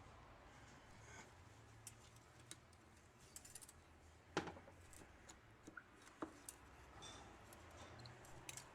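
Mostly near silence, broken by a few faint, sharp clicks and taps of metal transmission parts being handled, the most distinct one about four and a half seconds in.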